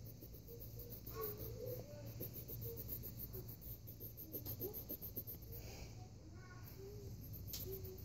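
Quiet room with faint, distant voices coming and going in the background and the soft scratch of a colored pencil shading on paper, over a low steady hum.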